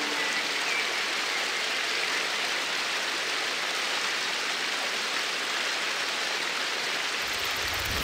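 Rushing water of a rocky rainforest river's rapids, a steady, even hiss. A low rumble joins near the end.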